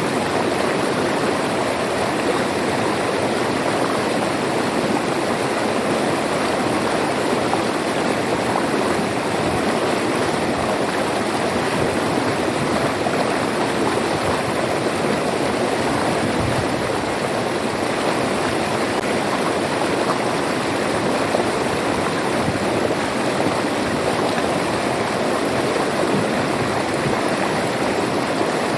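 River water flowing and rushing steadily over rocks, a constant even roar of moving water.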